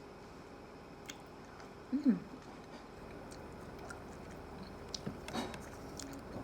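Quiet chewing of milk chocolate from a Kinder Surprise egg, with faint small clicks, and a short falling voice sound about two seconds in.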